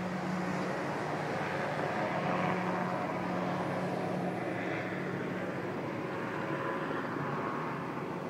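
Steady drone of a firefighting helicopter in flight, swelling slightly a couple of seconds in.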